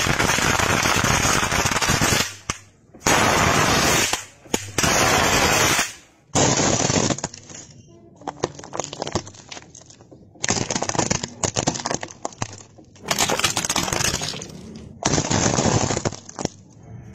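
Small objects being crushed under a car tyre in a run of short clips: first a dense, unbroken stream of rapid pops and crackles lasting a couple of seconds, then several shorter bursts of crackling, crunching and breaking plastic, each starting and stopping abruptly.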